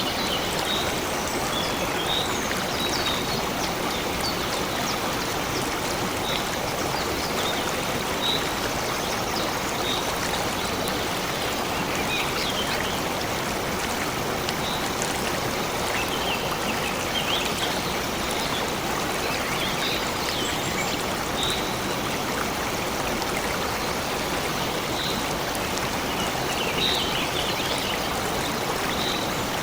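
Stream water flowing and trickling steadily, with short, high bird chirps now and then.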